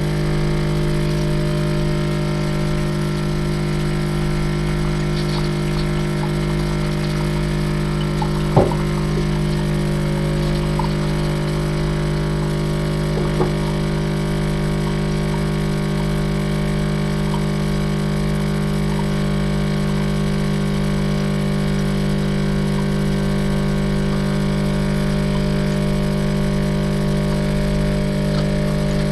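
Capsule coffee machine's pump running with a steady buzzing hum while it brews, pushing hot water through the capsule. There is a short knock about eight and a half seconds in and a fainter one a few seconds later.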